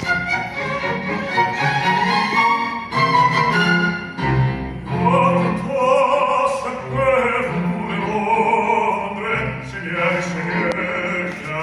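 Classical music: an operatic voice singing with vibrato over bowed strings.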